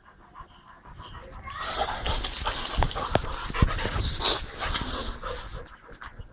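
Boxer puppy panting, loud and close, from about a second and a half in until it eases off near the end.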